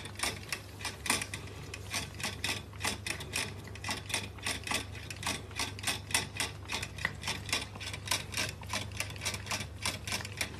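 A cat licking the metal drinking spout of a gravity-fed water bottle dispenser, making a rapid, steady clicking of about four clicks a second as its tongue works the nozzle.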